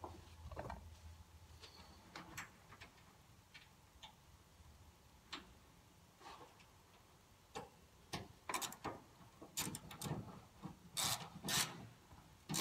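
Socket ratchet on an extension clicking in short, irregular runs as a roof bolt for a light bar mount is turned from inside the truck cab. The clicks are sparse at first and come closer together and louder in the last few seconds.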